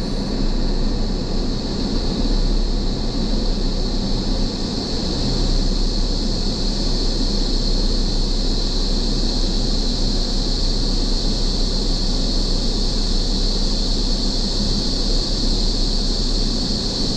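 A steady chorus of cicadas, one unbroken high drone that grows a little stronger near the end, over the low rumble of a Ford Ranger rolling slowly with its windows down.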